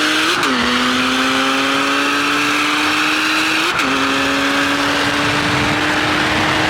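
BMW straight-six under full-throttle acceleration in a street race, its pitch climbing steadily through each gear. The revs drop sharply at two upshifts, about half a second in and again a little before the four-second mark, over a steady rush of wind and tyre noise.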